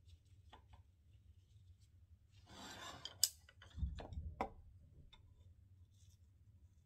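A brief scrape, then a sharp click, a dull knock and a few lighter clicks a little past the middle: wooden chopsticks handling thin egg-white sheet, against the square egg pan and a ceramic plate.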